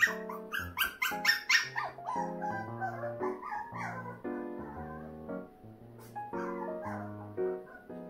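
Bichon Frise puppy crying in a quick run of short, high yips and whines during the first two seconds, with one more brief cry about six seconds in, over background piano music. The owner wonders whether this crying is already separation anxiety.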